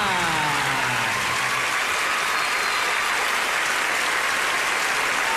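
Studio audience applauding steadily. Several falling tones sweep down and fade out in the first second or two.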